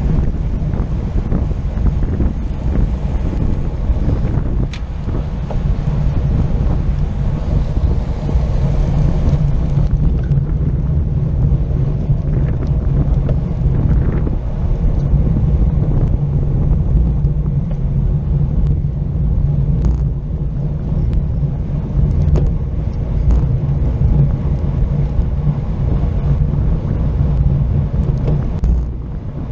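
Wind rushing over the microphone of a camera on a road bike moving at race speed: a steady, loud low rumble.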